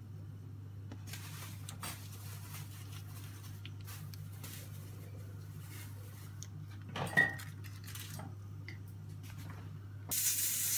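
Quiet kitchen handling with a steady low hum; about seven seconds in, a dish or utensil clinks once with a brief ring. Near the end a steady hiss sets in suddenly.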